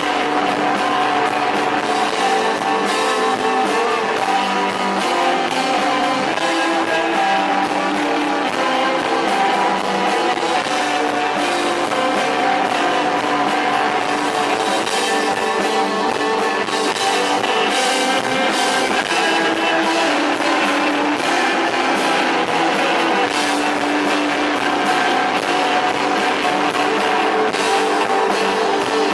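Live post-punk band playing: guitars over drums, with cymbal strikes throughout.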